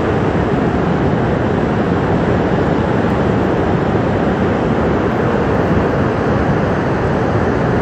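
Steady, loud rush of a flash flood: a torrent of muddy water and debris pouring down a river valley after a glacier break.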